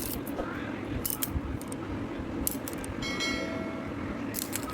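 Small hard objects clinking and rattling as they are picked up and put down, with a brief ringing tone about three seconds in, over a steady low hum.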